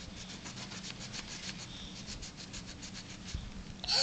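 Pen-on-paper scribbling: quick, even rubbing strokes across a sheet of paper on a tabletop, several a second, that stop about three seconds in.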